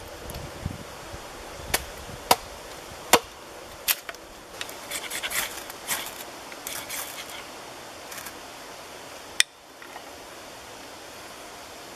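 A hatchet chopping kindling on a wooden log, four sharp knocks over the first four seconds. Then a ferro rod scraped quickly over and over, striking sparks onto tinder.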